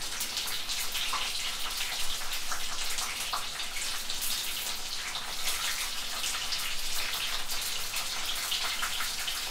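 Hot cooking oil sizzling steadily, a dense crackle of tiny pops.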